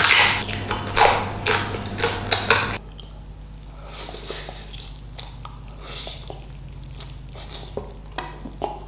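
Close-miked mukbang eating: crunchy food being bitten and chewed with loud crackling crunches. About three seconds in it cuts abruptly to a much quieter stretch of faint scattered clicks.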